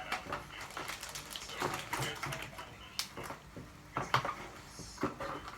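Irregular clicks and rustling from handling a Logitech G213 Prodigy keyboard and its packaging.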